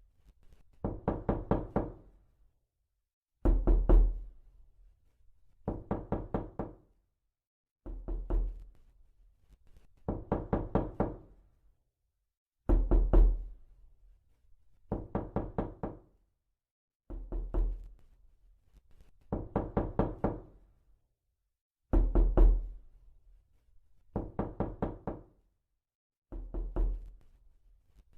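Scary knocking sound effect: bursts of several quick knocks repeated about every two and a half seconds, some bursts heavier and deeper than others.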